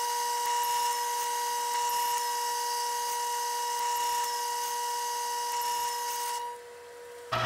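Grizzly G0765 mini lathe running under power with a steady whine and hiss as an internal threading tool takes a pass along a triple-lead thread in an aluminium bore. About six and a half seconds in, the hiss and whine drop away sharply.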